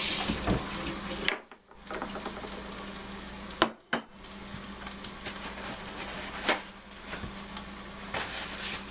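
Steak sizzling in foil on a George Foreman contact grill, a steady hiss over a low hum, with a few sharp clicks and knocks.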